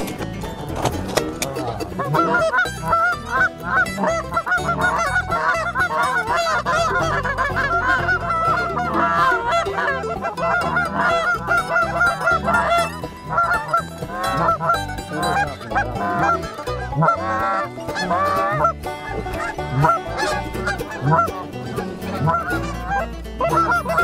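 A flock of Canada geese honking, many calls overlapping in a dense chorus that builds about two seconds in and carries on.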